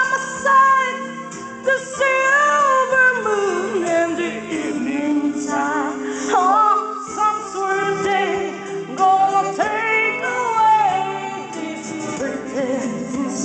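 A person singing along to recorded backing music, with long held notes that bend in pitch.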